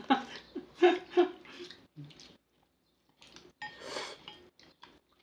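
Close-miked mukbang eating sounds: chewing and slurping glass noodles from kimchi stew. There is a short hissy slurp about four seconds in, followed by a few wet mouth clicks.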